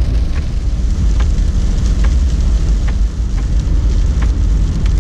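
Heavy rain falling steadily, with separate large drops ticking about once a second over a deep steady rumble.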